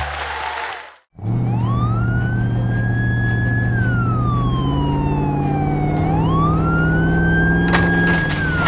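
Emergency-vehicle siren wailing: one tone rising, holding, falling slowly and rising again, starting about a second in after a brief silence, over a steady low hum.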